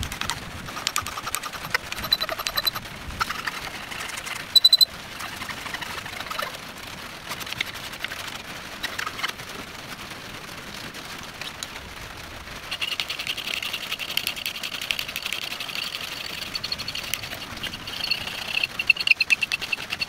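A hand file rasping back and forth across an aluminum piece clamped in a bench vise, in quick repeated strokes. There is one brief loud squeak near five seconds in, and the strokes take on a high squealing edge in the second half. Steady rain drums on the shed behind it.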